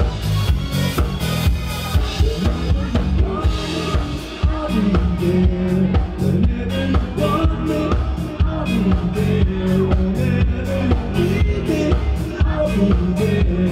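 Live rock band playing, with a drum kit keeping a steady beat under electric bass guitar. The bass and drums drop out briefly about four and a half seconds in, then come back fuller.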